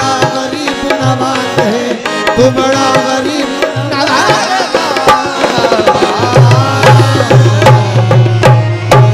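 Qawwali music: tabla beating out a fast rhythm under a harmonium's sustained chords, the low drum strokes growing heavier and denser over the last few seconds.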